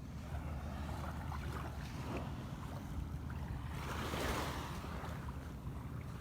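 Small waves washing onto the beach, one wash swelling to its loudest about four seconds in, over a steady low rumble.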